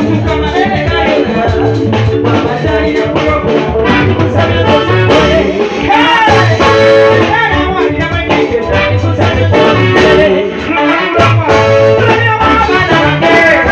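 A song playing: a voice singing over a steady, repeating bass line.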